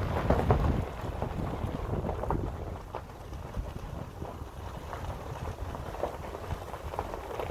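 A vehicle driving slowly downhill, heard from inside: a low rolling rumble of tyres and road with scattered small crackles and pops, and some wind on the microphone. Louder for about the first second, then steady.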